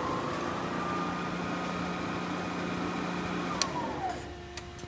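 Clausing-Kondia FV-1 vertical mill spindle running in its low range with a steady whine and hum. About three and a half seconds in there is a click, then the whine falls in pitch and fades as the spindle slows, followed by a few light clicks.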